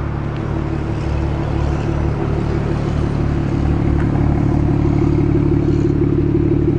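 2011 BMW 335is's twin-turbo 3.0-litre inline-six idling steadily through its sport-tuned dual exhaust, heard close to the tailpipes and growing louder over the first few seconds.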